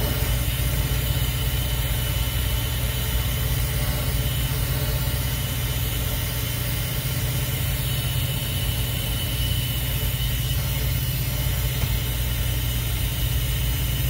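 Oxy-acetylene torch with a rosebud tip burning steadily as it heats a brazed copper refrigerant-line joint to unsolder it.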